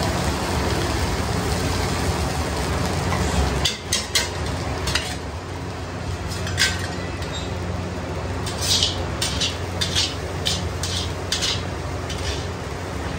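Automatic fried rice machine stirring rice in a steel wok, a steady mechanical hum with the scrape of the stirring arm. After nearly four seconds the hum drops, and a metal spatula scrapes and clinks against the wok several times, most often near the end.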